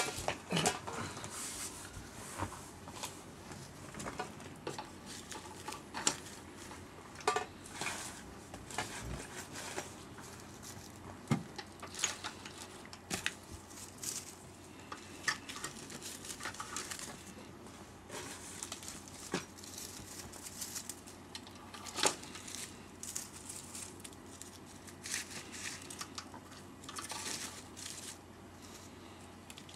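Rustling and crinkling of flower stems and leaves being handled and pushed into a vase arrangement, with irregular light taps and clicks throughout.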